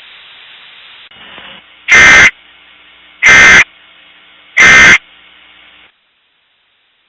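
Emergency Alert System end-of-message signal: three short, loud bursts of two-tone digital data code about a second and a half apart, marking the end of the alert. A faint hiss runs under them and cuts off near the end.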